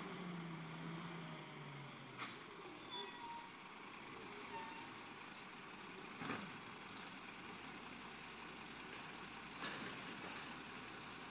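Garbage truck heard down the street: its engine note falls in pitch as it slows, then a thin high whine for about four seconds, and two short sharp sounds about three seconds apart.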